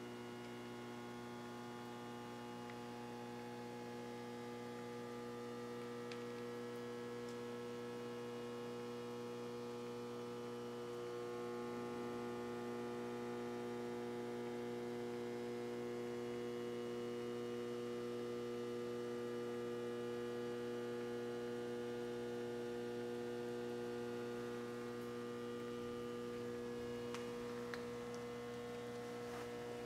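Steady electrical mains hum: an unchanging low buzz with a stack of evenly spaced overtones, and a few faint ticks near the end.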